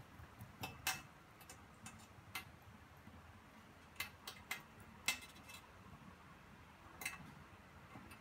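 Scattered sharp light clicks and taps, about eight in all at irregular intervals, over faint room hiss.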